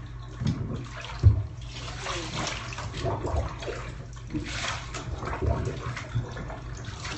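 Bathwater sloshing and splashing in a bathtub as a wet dog moves about in it, with a sharp thump about a second in.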